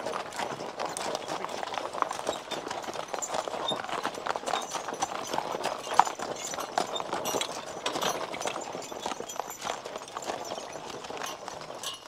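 Team of draft horses walking on gravel, hooves clopping irregularly while the rubber-tyred forecart's wheels crunch over the stones. One sharp click stands out about halfway through.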